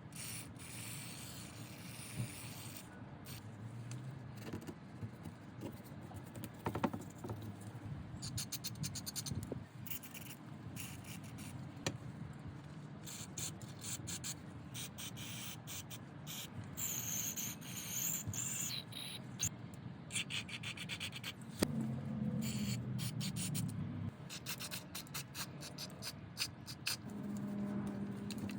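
Scraping and rubbing, with scattered small clicks and knocks, like hand work on small parts.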